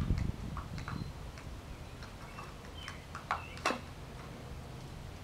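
Scattered small clicks and taps of a hand tool against a small cup and the punctured lithium battery inside it as the battery is gripped and pulled out. The sharpest tap comes a little past the middle.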